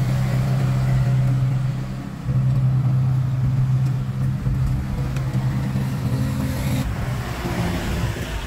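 Diesel engine of a Sakai pneumatic-tyre road roller running with a steady low drone, which drops off and resumes about two seconds in and shifts again near seven seconds.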